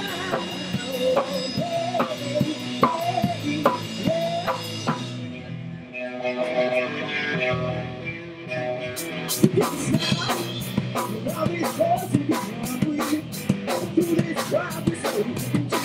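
Live rock band playing electric guitars and bass over a drum kit. About five seconds in, the cymbals drop out and the guitars carry on alone for a few seconds. The full band comes back in a little past the middle with steady, regular cymbal hits.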